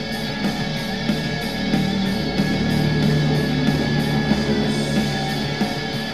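Rock music with guitar and a steady drum beat, played through a portable Bluetooth speaker in a sound test.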